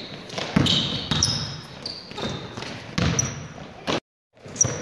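Basketball bouncing irregularly on a hardwood gym floor during play, the thuds echoing in the hall, with short high sneaker squeaks from players on the court. The sound cuts out briefly about four seconds in.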